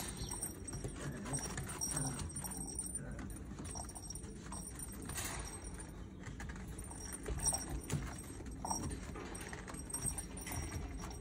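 Border Collie puppies playing: paws scrabbling and shuffling on a sheet, with irregular taps and rustles and a few louder knocks.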